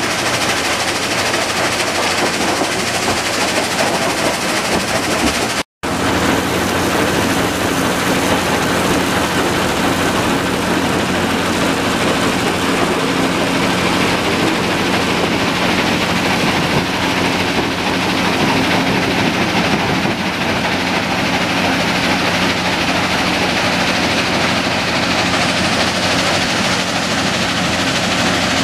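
Kue-Ken rock crushing plant running: crushers, vibrating screen and belt conveyors make a loud, steady, dense rattle, with crushed gravel pouring off a conveyor onto a stockpile. The sound cuts out for an instant about six seconds in, and after that a steady low hum runs under the rattle.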